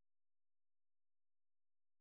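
Silence: the film has no soundtrack.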